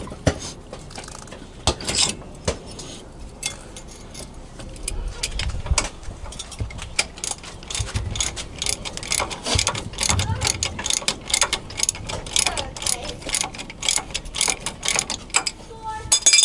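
Hand socket ratchet clicking as it works bolts on a truck's wheel hub assembly. The clicks are scattered at first, then come in quick runs of strokes from about a third of the way in.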